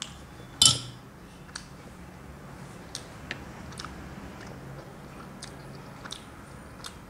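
A metal spoon clatters once against a ceramic bowl just over half a second in, followed by soft chewing and small wet mouth clicks.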